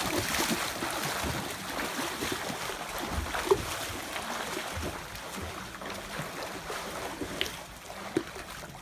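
Swimmers splashing through pool water mid-race: a steady wash of splashing that slowly fades, with one brief tap about three and a half seconds in.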